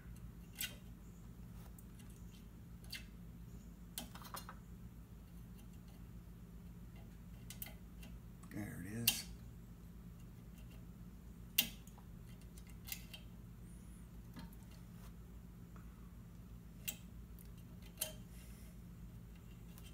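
Small metallic clicks and clinks as a metal pick works the wire C-clips off the transmission cooler line fittings of a Chevy Tahoe's trans cooler. Scattered sharp ticks come every second or two, the loudest about nine seconds in and again near twelve seconds, over a steady low hum.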